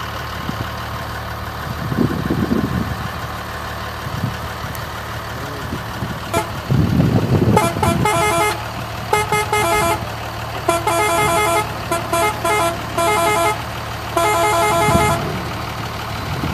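BharatBenz tipper truck's diesel engine running as it drives closer, with its horn sounding in clusters of short repeated blasts from about halfway through.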